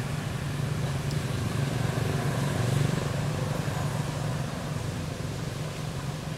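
Steady low rumble of a motor vehicle engine, swelling a little about two to three seconds in and easing off near the end.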